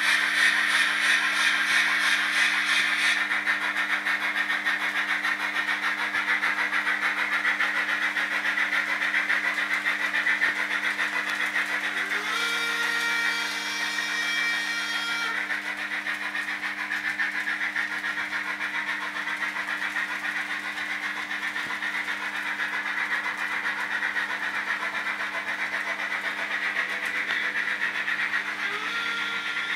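HO-scale model trains running: a steady clatter of wheels on track over a low hum, with a hiss in the first few seconds. About twelve seconds in, a locomotive sound unit gives a whistle that rises into a held tone for about three seconds, and another whistle starts near the end.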